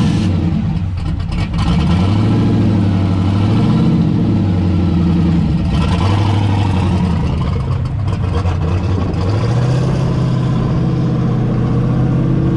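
Car engine running while driving, with a steady drone whose pitch steps up and down several times as the revs change.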